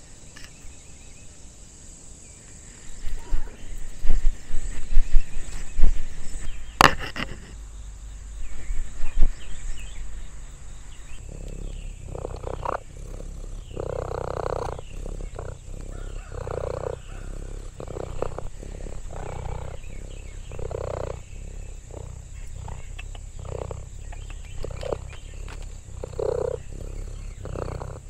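Domestic cat purring close to the microphone: a steady low rumble that swells with each breath, about once a second, setting in about eleven seconds in. Before it come irregular bumps and one sharp click.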